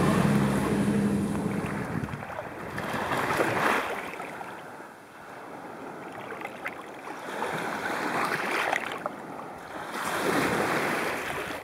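Small waves washing onto a sandy beach, swelling and ebbing every few seconds. The tail of a song fades out in the first couple of seconds.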